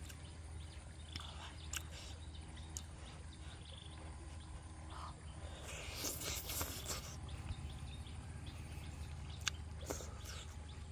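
Close-miked eating of grilled fish: scattered wet mouth clicks and lip smacks, with a short rushing noise about six seconds in as a bite is taken from the spoon, over a steady low hum.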